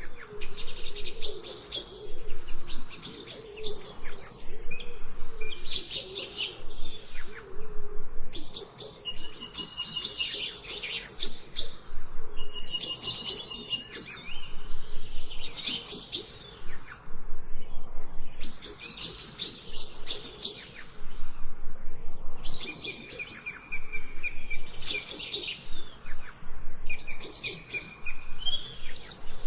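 Forest songbirds singing: several birds chirping and trilling in quick overlapping phrases, coming in bursts every few seconds with short pauses between.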